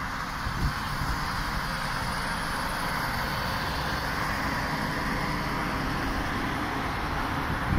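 Steady mechanical hum and whir of an ED4M electric multiple unit's on-board machinery while the train stands, with a soft thump about half a second in and another near the end.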